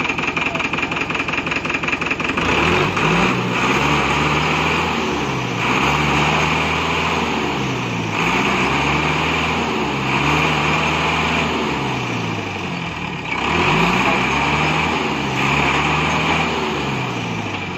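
Truck's diesel engine idling, then from about two and a half seconds in revving up and falling back again and again, roughly every two seconds, as the driver tries to power the mud-stuck rear wheels free.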